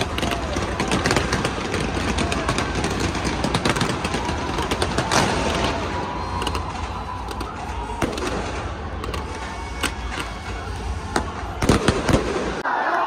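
Stadium fireworks display going off: a rapid, irregular string of bangs, pops and crackles over continuous dense noise, with the loudest bangs coming near the end.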